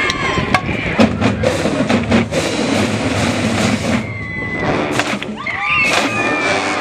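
Massed marching band of drums and brass playing, with sharp drum strikes over sustained low brass notes.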